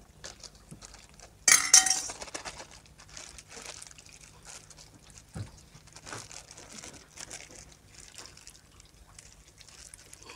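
A metal spoon strikes an aluminium pot about a second and a half in, a short loud ringing clink. After it, fish cakes sizzle faintly in oil in a frying pan, with scattered light taps and rustles.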